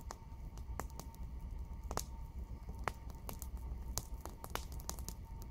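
Small just-lit fire of dry grass and twigs crackling, with irregular sharp pops over a low rumble.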